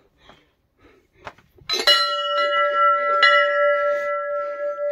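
Temple bell struck about two seconds in and again a second or so later, ringing on in a long, steady tone with several pitches.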